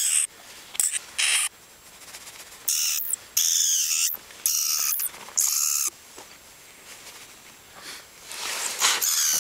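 Vampire bat held in leather gloves giving a string of short, shrill, high-pitched distress squeals, with a lull of about two seconds before a last squeal near the end.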